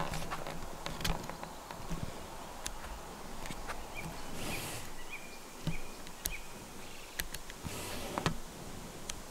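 Outdoor ambience with scattered short high chirps and light clicks, and two brief rustles, one about four and a half seconds in and one near eight seconds.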